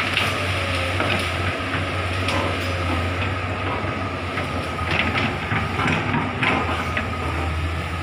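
Komatsu hydraulic excavator's diesel engine running steadily under load, with a steady high tone over it and scattered short cracks and knocks as the bucket works through felled branches.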